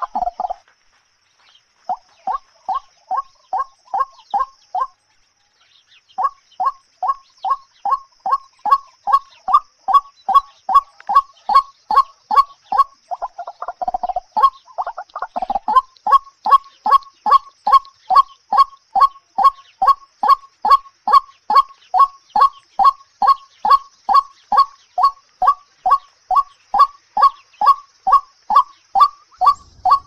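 White-breasted waterhen calling: a long series of short, evenly repeated notes, about two to three a second, broken by brief pauses near the start, with a lower, rougher call about halfway through.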